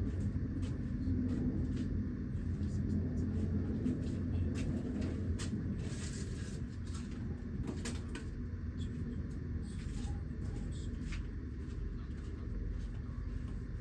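Steady low rumble with scattered light clicks and taps and a couple of brief rustles, as of hands and tools working on parts close by.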